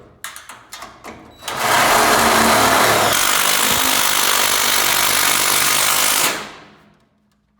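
Cordless drill driving a self-tapping screw into the sheet steel of a garage door strut. A few clicks and knocks, then the drill runs hard for about five seconds and winds down, its battery running low.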